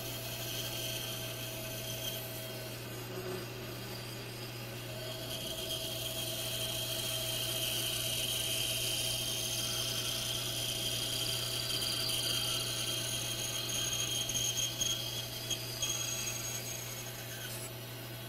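Bandsaw running and its blade cutting through a thick wooden block: a steady motor hum under a higher cutting hiss that grows louder midway, with a few brief sharp spikes near the end.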